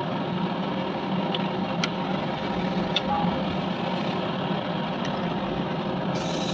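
Steady mechanical hum and rumble with a few light clicks.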